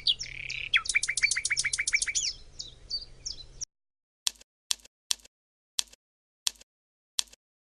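A small bird singing a fast trill of quick, high, down-slurred chirps that cuts off suddenly. It is followed by seven short, sharp single chips about half a second apart.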